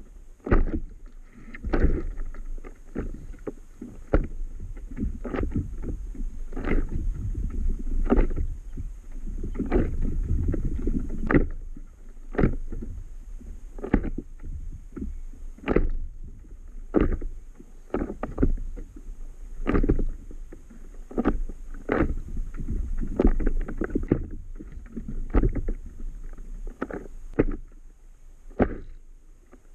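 Small waves slapping against the hull of an inflatable Itiwit 11 stand-up paddle board in irregular knocks, about one or two a second, over a steady low rumble.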